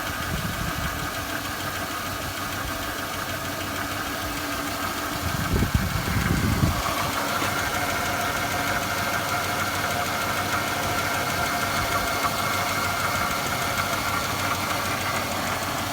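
2006 Chevrolet Impala's 3.9-litre V6 idling roughly with a misfire, logged as a cylinder 6 misfire (P0306), and the engine is rocking on its mounts. About six seconds in there is a brief low rumble, after which the running sound steadies.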